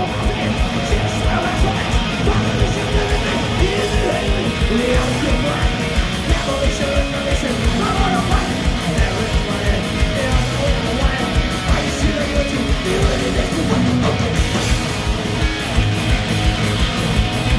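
Live rock band playing loud through the PA: electric guitar, bass guitar and a drum kit keeping a steady beat, with a lead guitar line over it.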